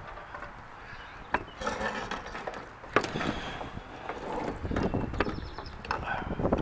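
Several sharp clicks and knocks, the loudest about a second and a half in and again at about three seconds, over a low rumble that grows toward the end.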